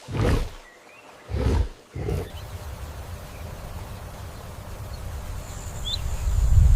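A big cat giving three short, deep roaring grunts in quick succession, followed by a steady low rumble that swells near the end.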